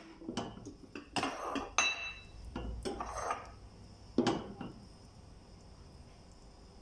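A metal ladle scraping and knocking against a stainless steel saucepan while scooping thick tomato sauce: a run of clinks and scrapes, one with a short metallic ring, the loudest knock about four seconds in, then quiet.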